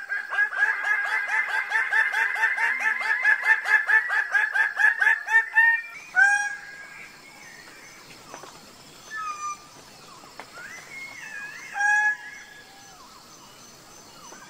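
Greater bird-of-paradise giving loud, harsh display calls. A fast run of repeated notes at about five a second lasts some six seconds, then single calls follow a few seconds apart.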